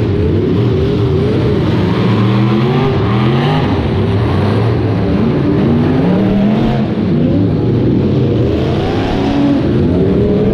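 Several demolition derby cars' engines revving hard at once, many overlapping pitches rising and falling as the drivers accelerate and back off.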